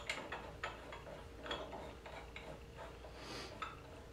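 Light, irregular metal clicks and taps as small screws and the stepper-motor mounting plate are handled and fitted on an aluminium CNC router Z-axis carriage.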